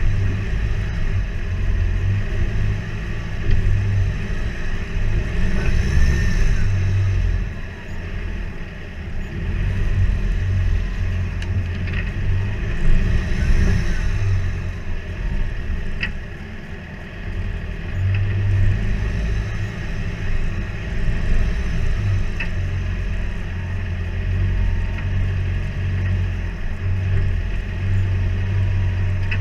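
A Mitsubishi MN Triton 4WD ute's engine running steadily at low speed under load as it crawls up a rock-step climb, a constant low rumble. A few light sharp knocks come through around the middle.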